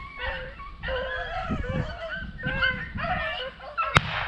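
A pack of beagles baying in repeated, overlapping howls while running a rabbit's trail. A single sharp crack cuts in near the end.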